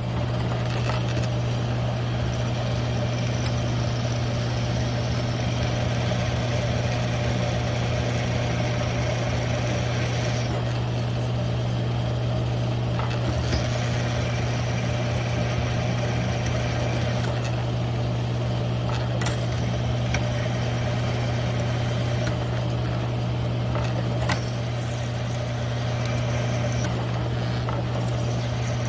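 Grizzly G1007 mill-drill running steadily with a strong electric-motor hum while drilling a 3/8-inch hole through steel plate, with a few faint ticks.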